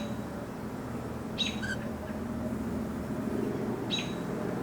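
Cockatiels chirping: two short high calls, about a second and a half in and again near the end, over a steady low background hum.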